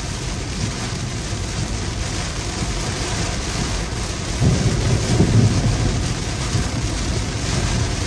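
Heavy rain pouring down on a car, with a low rumble of thunder that swells about halfway through and then eases.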